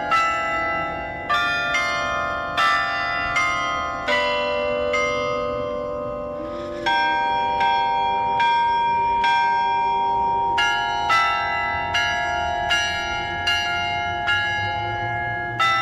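Carillon bells playing a slow melody, struck one note at a time, each bell ringing on under the next, with one note left to ring longer about halfway through.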